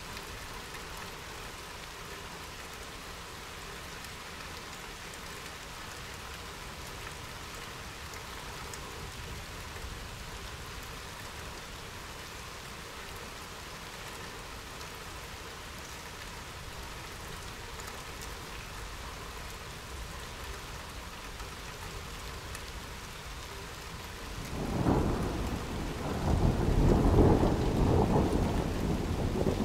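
Steady rain falling, then about 25 seconds in a rolling rumble of thunder that swells in waves and grows loud, still rumbling at the end.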